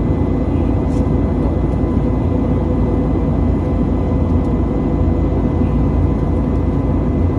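Steady cabin noise of an Airbus A320neo airliner in flight: a constant low drone of engines and airflow with a few faint steady tones over it.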